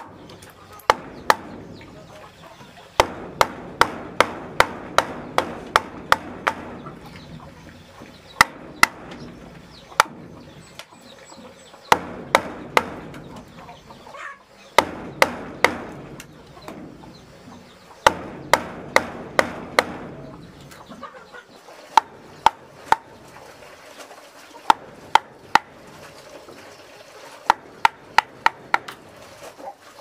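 Hammer driving nails into a wooden roof brace: sharp knocks in runs of several quick blows, with short pauses between runs.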